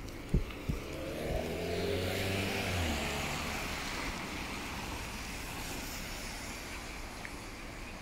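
A small car drives past on a wet road. Its engine note falls in pitch as it goes by, and its tyres hiss on the wet asphalt, fading slowly. Two sharp knocks come just before it.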